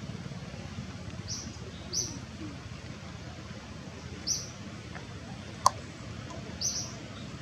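Short high-pitched animal chirps, four of them a second or two apart, over a steady low background rumble, with one sharp click near the end.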